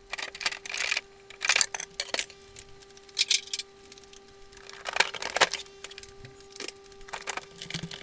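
Refrigerator shelves and bins being handled and taken out: scattered clinks and knocks, over a steady hum that runs throughout.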